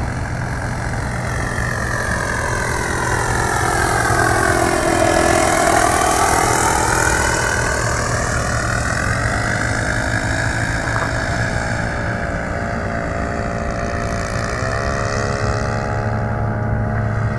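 Yellow Piper Cub's propeller engine droning as it flies over. Its note sweeps down and back up about five seconds in, and shifts again near the end.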